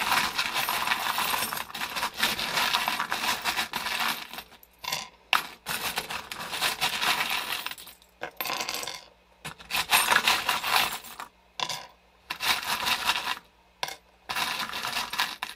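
A handful of small metal charms jingling and clinking as a hand rummages through a wooden box of them and spills them out, in repeated bursts with short pauses between.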